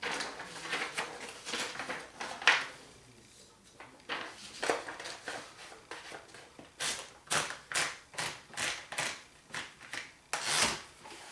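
1939 Remington Remette typewriter being typed on, its keys striking in sharp clacks at an uneven pace, quicker at about two a second in the second half, with a longer rasping stroke shortly before the end.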